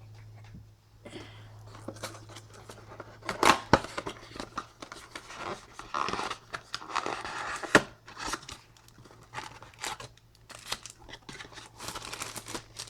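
Plastic wrapping being torn and crinkled off a cardboard trading-card blaster box, in irregular rustles with sharp crackles and clicks, the loudest a few seconds in and again about eight seconds in.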